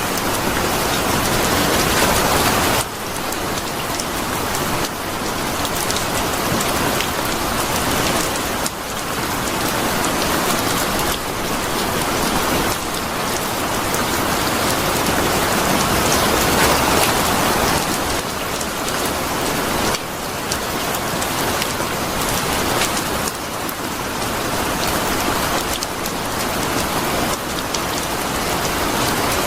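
Steady heavy rain falling, a dense even hiss of drops on surfaces, with small abrupt shifts in loudness every few seconds.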